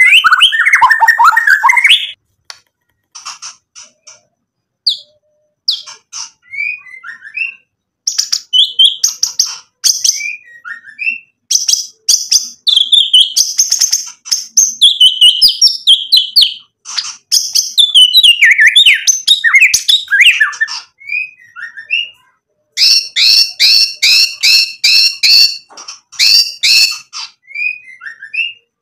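A white-rumped shama (murai batu) sings loud, varied whistled phrases, sliding notes and chirps, broken by short pauses. A few seconds in, the song drops to soft clicks and short chirps before the full song returns. Near the end comes a fast run of repeated notes, about three a second.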